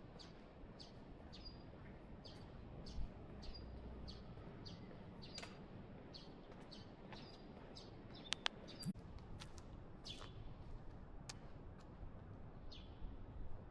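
A small bird chirping over faint outdoor background noise: short high chirps about twice a second at first, then fewer and further apart.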